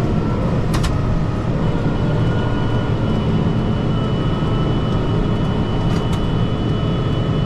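Kubota M5-091 tractor's four-cylinder turbo diesel running steadily under way, heard from inside the closed cab. Two brief sharp clicks sound over it, about a second in and again near the end.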